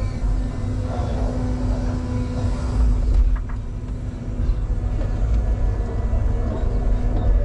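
Electric Cat 320 Z-Line excavator working, heard from inside the cab: a steady low rumble with a constant hum from its electric drive and hydraulics, and a few small knocks.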